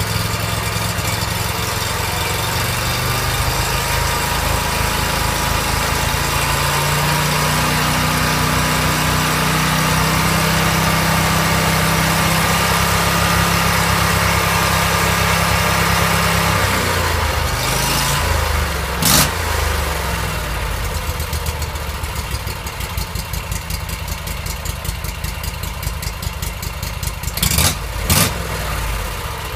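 Freshly rebuilt Briggs & Stratton Vanguard V-twin mud-motor engine, with a performance cam and gutted exhaust, on its final test run. It is held at raised revs, then drops back to idle about two-thirds of the way through. There are a couple of brief sharp sounds just after the drop and two more near the end.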